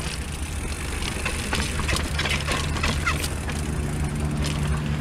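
Brusko Kalis full-suspension mountain bike running down a rough dirt trail: a constant rumble of wind and tyres with scattered clicks and rattles from the bike over the bumps, and a steady hum joining about two seconds in. The rattling comes from a fork and rear shock that the rider finds somewhat noisy.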